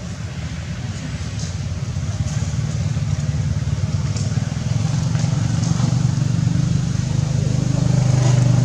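A motor vehicle engine running steadily with a low hum, growing louder toward the end.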